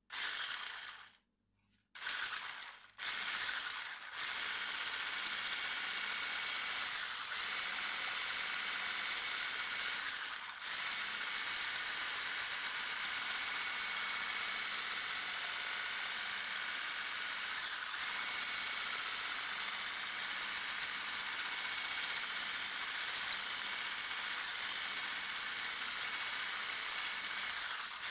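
Electric hand mixer with wire whisks beating eggs, sugar and oil in a glass bowl. It starts, cuts out briefly about a second in, starts again at about two seconds, then runs steadily with a high whine.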